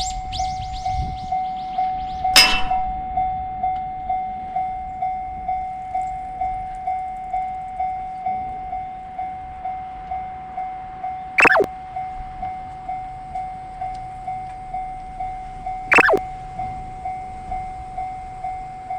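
Japanese level-crossing alarm bell ringing its repeated electronic clang, about two strokes a second. Three short sharp sounds cut through it, the first about two seconds in.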